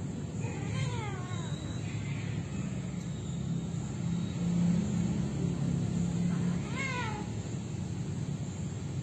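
Cat yowling while mating: two drawn-out calls that fall in pitch, about a second in and again about seven seconds in. Under them runs a steady low rumble that is loudest in the middle.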